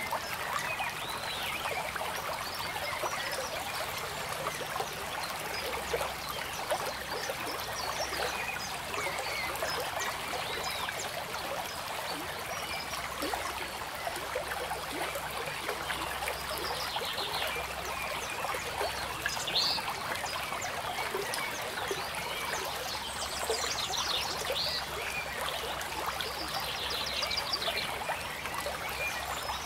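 Water trickling and running steadily, like a small stream, with scattered short chirping calls and a few quick trills above it.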